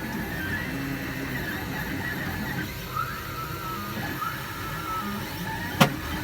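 XYZprinting da Vinci Pro 3D printer running, its stepper motors whining in shifting, gliding pitches as the print head moves. Near the end there is one loud, sharp bang, part of a repeated banging whose cause the owner cannot find.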